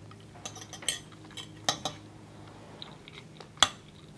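Metal fork clinking and scraping against a ceramic plate of food: a handful of light clicks, the sharpest about three and a half seconds in. Under it runs the faint steady hum of lawn mowing in the background.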